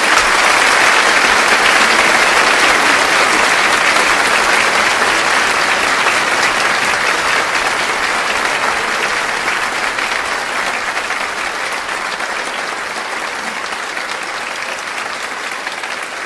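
Audience applauding, loudest at the start and slowly fading.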